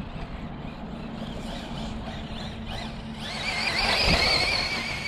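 Losi 8ight-E 1/8-scale electric RC buggy running on a 4S battery: its brushless motor and drivetrain whine, rising and falling in pitch as it accelerates. The whine grows loud and high about three seconds in as the car comes near.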